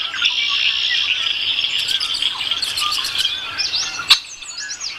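A dense chorus of birds chirping and calling, many overlapping quick notes and slurred whistles. A single sharp click sounds about four seconds in.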